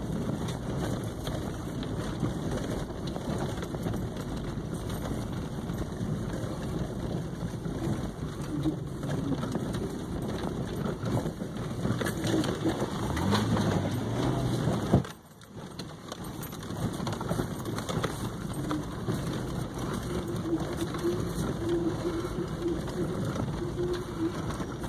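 Vehicle driving slowly over a rough dirt track through woods: engine hum mixed with the rumble and crunch of tyres on dirt. A sharp knock about fifteen seconds in is followed by a brief drop in sound.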